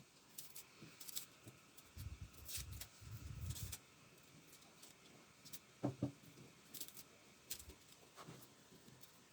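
Knife cutting onions, faint irregular cuts and taps.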